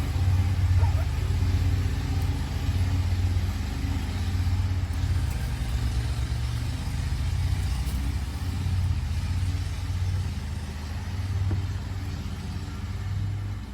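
A vehicle engine running steadily, a low hum with a slight waver in level.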